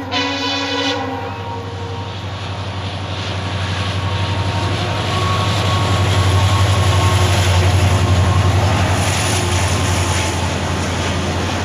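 An Indian Railways train's horn cuts off about a second in, then the train runs past close by: a loud, steady rumble and rattle of wheels on rail joints that builds toward the middle and eases a little near the end.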